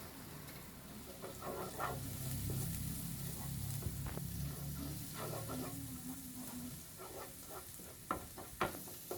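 Minced garlic sizzling in melted butter in a pan while it is stirred constantly, with a few sharp clicks near the end.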